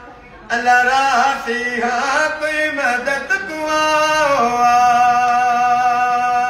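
An elderly man singing a noha, a Shia mourning lament, alone with no instruments. After a short breath he sings a winding phrase, then holds one long note that cuts off near the end.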